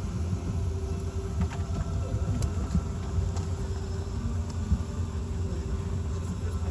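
Steady low cabin hum inside a Boeing 717-200 airliner, with a faint held tone over the rumble and a few light clicks.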